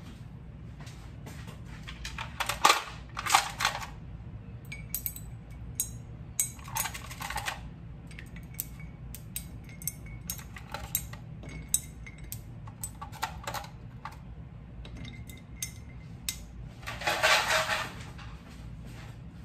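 Ice cubes clinking and knocking as they are taken from a plastic ice box and dropped into a ceramic mug of milky drink, in scattered single clicks with three louder rattling clusters, the loudest near the end. A steady low hum runs underneath.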